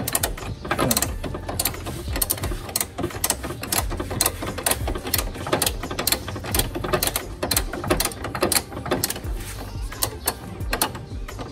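Socket ratchet wrench clicking in quick, repeated runs as it is swung back and forth to undo an engine mount bolt.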